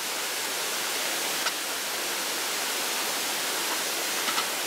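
Steady rushing of a nearby stream, with a couple of faint light clicks about a second and a half in and again near the end.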